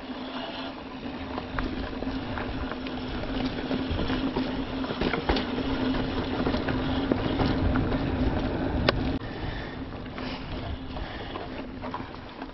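A mountain bike being ridden along a dirt singletrack trail: knobby tyres rolling, sharp clicks and rattles from the bike over bumps, and wind noise on the microphone. A steady hum runs under it and fades about nine seconds in.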